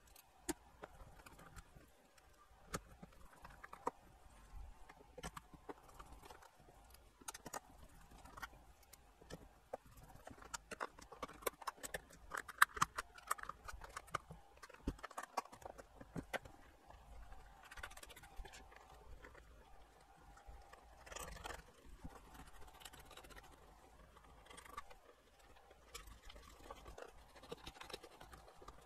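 Faint, scattered clicks, taps and light scrapes of hands handling the plastic rear housing of a Lowrance fish finder and fitting its connector sockets during reassembly.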